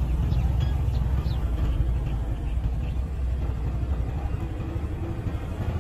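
Low, steady engine rumble from vehicles on a dirt road, a truck hauling an excavator and a motorcycle pulling away after it, fading slightly as they move off. A few faint high chirps sound above it.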